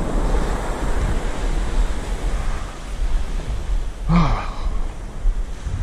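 Wind noise on the microphone over the steady wash of surf on a beach. About four seconds in, a brief voice sound falls in pitch.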